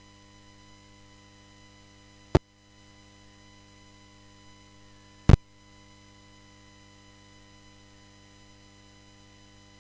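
Faint steady electrical mains hum from the chamber's microphone and sound system, broken by two sharp, loud clicks about three seconds apart.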